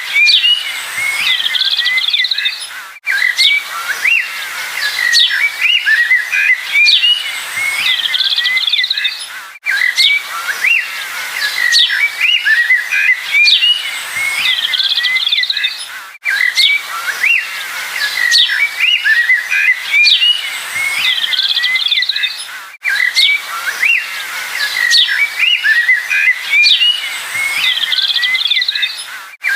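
Many small songbirds chirping and twittering together in a busy chorus. It is a short recording looped about every six and a half seconds, with a brief dropout at each join.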